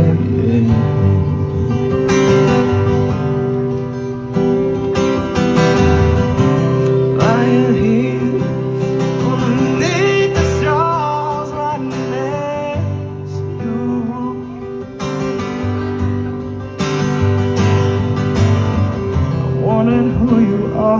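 Acoustic guitar strummed in a slow, steady rhythm: an instrumental stretch between sung lines of a slow song.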